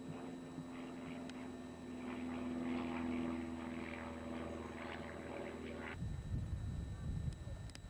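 A motor drones steadily on one pitch, swelling a little in the middle. About six seconds in it cuts off abruptly and gives way to an uneven low rumble of wind on the microphone.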